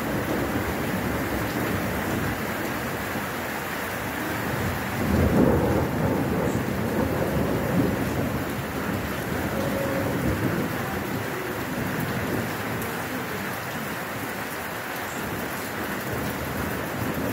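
Thunderstorm: steady heavy rain with rolling thunder, a louder rumble swelling about five seconds in.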